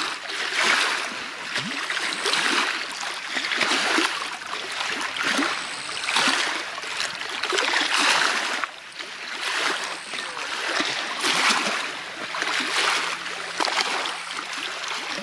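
Small waves lapping and splashing against the side of a small inflatable boat, the splashing swelling and fading every second or two.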